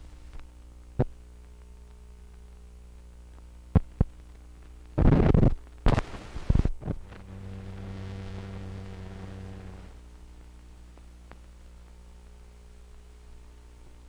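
Hum and pops from an old film soundtrack running over blank leader: a steady low hum with a few sharp clicks, and a loud burst of crackling noise about five seconds in. More pops follow, then a low buzz from about seven to ten seconds in before the plain hum returns.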